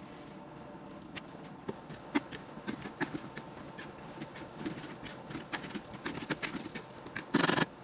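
A metal utensil stirring and tossing noodles in a stainless steel wok, clicking and scraping against the pan at an irregular pace over a low steady hiss. Near the end there is a louder scrape lasting about half a second.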